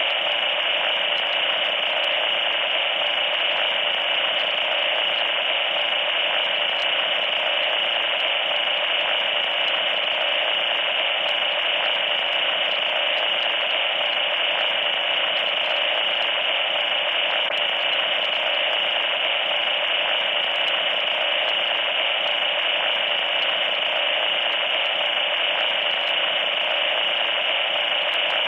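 Loud static noise: a steady, unchanging hiss with a sharp high edge, like an untuned radio.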